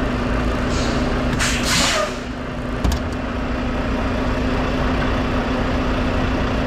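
Semi truck's diesel engine idling steadily, with a short hiss of air about a second and a half in and a brief click about three seconds in.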